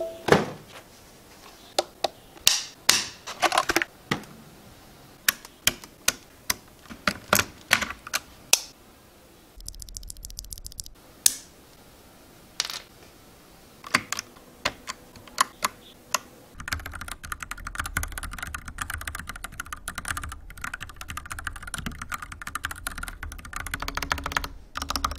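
Typing on an FL·ESPORTS FL980 mechanical keyboard with Bauhinia switches: single keystrokes spaced out at first, then fast continuous typing from about two-thirds of the way in.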